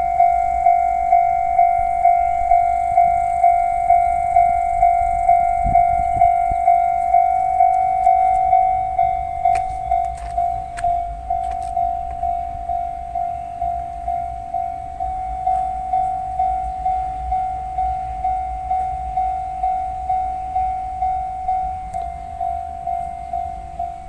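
Japanese level-crossing alarm sounding its warning while the crossing is closed for an approaching train: a steady-pitched ding repeating a little under twice a second. It becomes somewhat quieter about nine seconds in.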